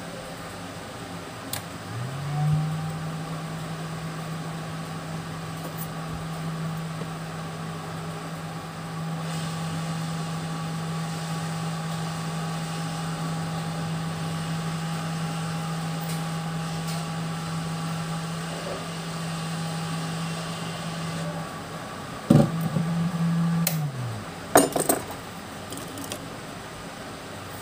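Hot air rework station blowing on a phone's charging port, its fan humming steadily after spinning up about two seconds in, then winding down near the end. A few sharp metallic clicks come as it stops.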